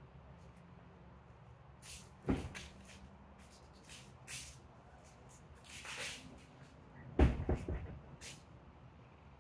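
Handling noise close to the microphone: short fabric rustles and two dull thumps, the louder one about seven seconds in, followed by a few quick knocks.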